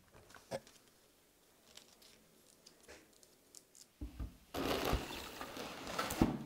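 Cardboard box and plastic and paper packaging being handled: a few light taps and rustles, then a loud rustle of about two seconds ending in a knock near the end.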